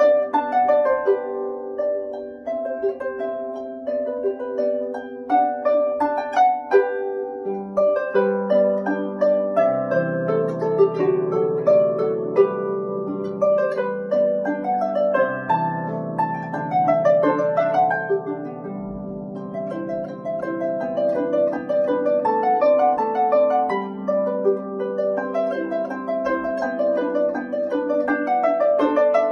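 Solo harp played by hand: a steady stream of plucked notes, with deeper bass notes joining after the first several seconds.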